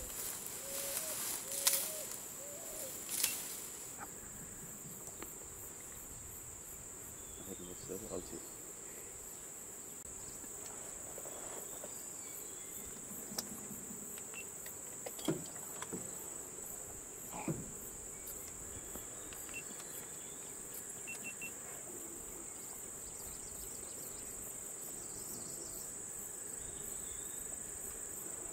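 Insects in a steady, high-pitched drone, with a few short clicks and knocks over it.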